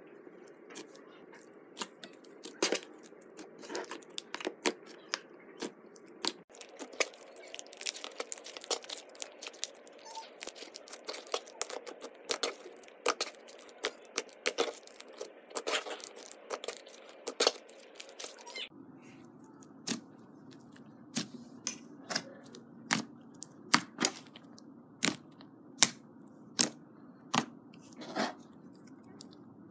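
Butter slime made with polymer clay being squeezed, poked and stretched by hand, giving a rapid, irregular run of sharp clicks and sticky pops as air pockets in the slime burst. A faint steady hiss sits under it.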